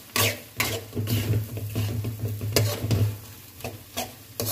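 Metal spatula scraping and knocking against a steel kadai while stirring a thick, simmering chicken and vegetable gravy, in irregular strokes about every half second to second. A steady low hum sits underneath.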